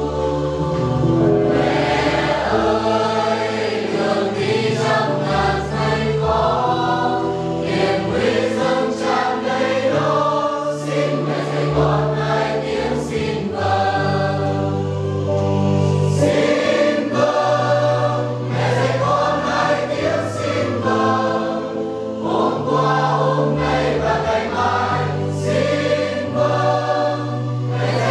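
Church choir and congregation singing a Vietnamese hymn in unison, accompanied by an electronic keyboard playing sustained chords.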